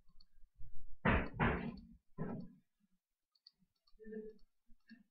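Computer mouse clicking: scattered light, quick clicks as pixels are placed one by one in a cursor editor. About a second in come two louder, brief noisy bursts, with a weaker one just after.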